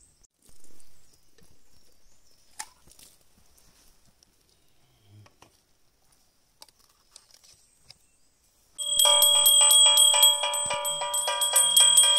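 Metal puja hand bell rung rapidly and continuously for the aarti, starting about nine seconds in. Before that there are only a few faint clicks and knocks from handling the offerings.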